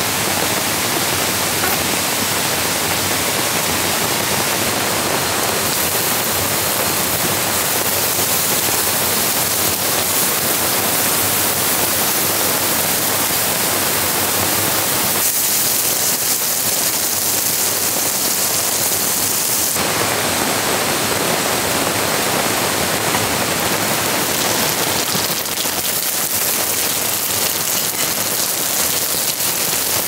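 Steady rain falling together with the rush of a rain-swollen creek: a dense, even hiss whose tone changes abruptly a few times.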